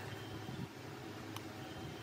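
Faint steady hum with a single small click about one and a half seconds in.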